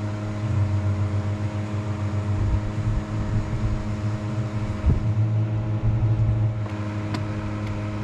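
Steady mechanical hum from a running machine, even and unchanging in pitch, with a few faint clicks near the end.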